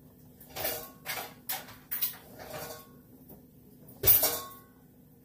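Kitchenware clattering: several light, irregular knocks of dishes or pots, then one loud clank about four seconds in that rings briefly.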